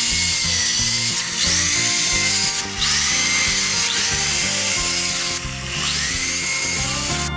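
Electric drill boring into a wooden speaker-box top in about four runs, each starting with a rising whine as the motor spins up. Background music plays underneath.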